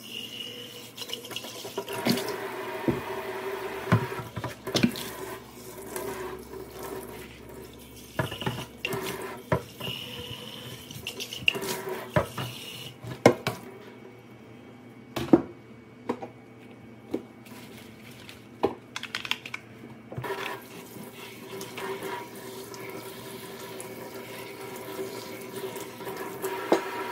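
Kitchen tap running into a stainless steel sink while plastic pitchers are washed and rinsed, with scattered knocks and clatters of the plastic against the sink. The flow eases off for a few seconds past the middle.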